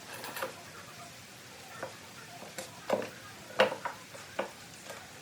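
Irregular light knocks and clicks, about ten of them, with the loudest pair around three to four seconds in: small hand work with tools or wood.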